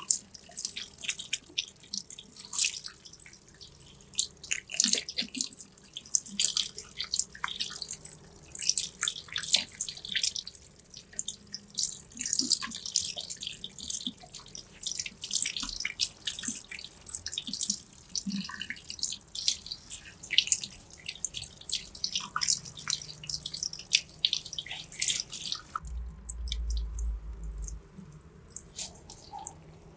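Fingers rubbing and squeezing through wet hair at a shampoo basin, making a dense run of small wet crackles and clicks. The crackling thins out about four seconds before the end, when a brief low rumble comes for about two seconds.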